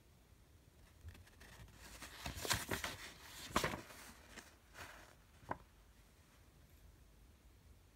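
Paper pages of a printed instruction booklet rustling as they are turned and pressed flat: a run of crisp rustles over a few seconds, ending in one short sharp crinkle.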